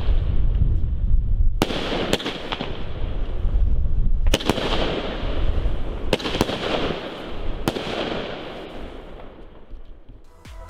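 Argento Carolus consumer firework battery (cake) firing its last shells: sharp bangs of shells bursting every second or two, with a rushing noise between them. The shots die away near the end without a finale salvo.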